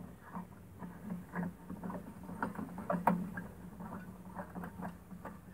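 A 70 W high-pressure sodium lamp being screwed by hand into the lantern's lampholder: a run of small irregular scrapes and clicks as the glass lamp turns in the holder, with one sharper click about three seconds in. A faint steady low hum runs underneath.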